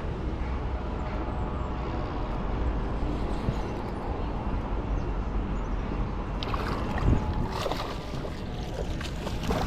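Small fishing boat on the water with wind on the microphone: a steady low rumble and faint hum, then a run of sharper, scratchy noises from about six and a half seconds in.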